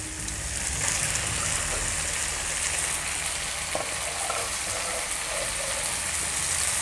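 Raw chicken pieces frying in hot oil with the cooked onion and tomato base: a steady sizzle.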